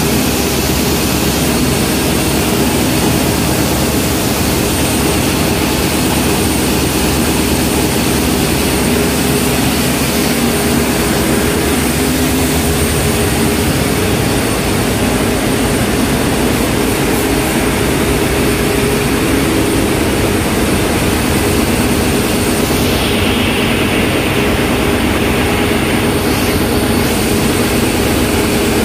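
Ship's marine diesel main engine running steadily, a loud, continuous engine-room drone with a low hum.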